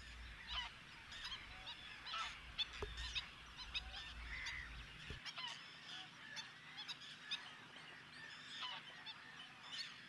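Black-winged stilt calling: many faint, short, sharp calls in quick succession. A low rumble underneath cuts off suddenly about five seconds in.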